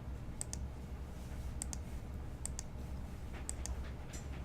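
Faint sharp clicks, about eight of them, several in quick pairs, over a steady low hum.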